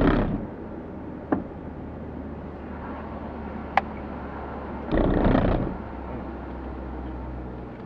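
Car interior while driving: steady low engine and road rumble, with two short loud rushes of noise, one at the start and one about five seconds in, and two sharp clicks.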